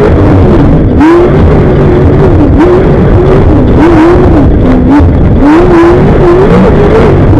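Off-road race vehicle's engine driven hard at racing speed, its pitch swinging up and down as the throttle comes off and goes back on, with short drops about a second in and a few more times. A loud, dense noise of wind and chassis runs under it.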